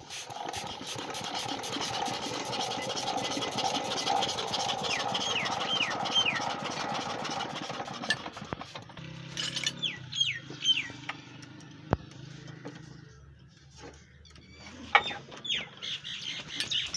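Small F170 4 hp single-cylinder diesel engine running with a fast, even knock after hand-crank starting. It cuts off about eight and a half seconds in, leaving a faint low hum.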